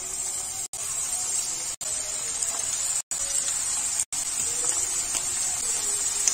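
Batter-coated chicken pieces sizzling as they deep-fry in hot oil in a kadai, more pieces dropped in one by one. A steady high hiss grows gradually louder and is broken by a few brief silent gaps.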